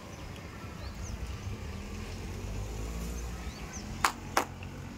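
A steady low rumble with a few faint high chirps, then two sharp clicks about a third of a second apart near the end.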